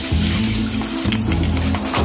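Background music, with bass notes that change every half second or so.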